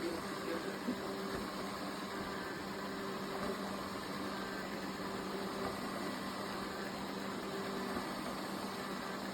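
Robot vacuum cleaner running: a steady motor hum with a constant low tone over an even hiss.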